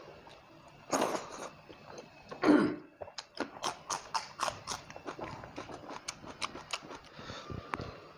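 Close-miked eating sounds of a man eating rice and fried fish curry by hand: two short, loud breathy bursts, then wet chewing and lip-smacking clicks, about three a second.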